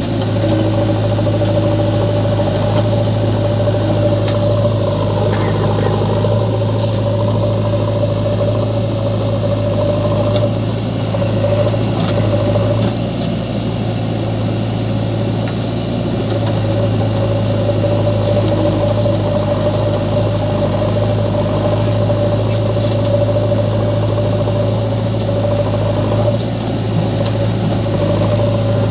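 Diesel engines of a JCB 3DX backhoe loader and a tractor running steadily at an even speed, a constant low drone with a steady mid-pitched hum over it.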